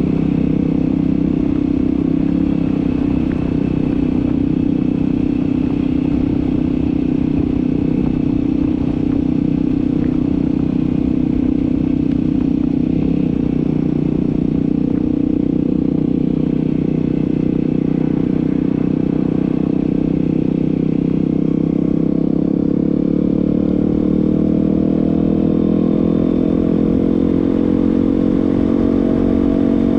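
Yamaha WR250R's single-cylinder four-stroke engine running steadily under way, its pitch rising slowly over the last several seconds as the bike speeds up.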